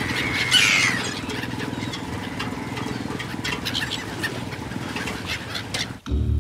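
A fishing boat's motor running steadily while gulls call overhead, with one loud descending gull cry about half a second in and scattered shorter calls after. Near the end it cuts abruptly to low music.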